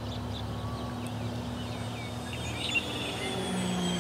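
Twin brushless outrunner motors and propellers of an electric RC P-38 park-flyer whining in flight. The whine wavers in pitch and gets louder near the end as the plane comes closer, over a low rumble, with a single click about three seconds in.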